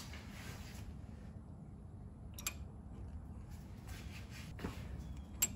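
Quiet steady background hum with two faint, short clicks, one about two and a half seconds in and one near the end.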